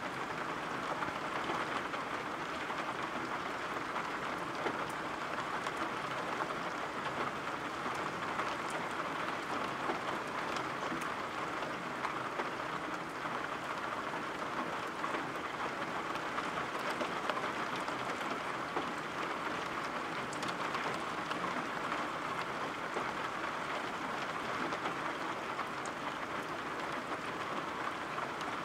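Steady rain falling, an even hiss with scattered faint drop ticks and no thunder.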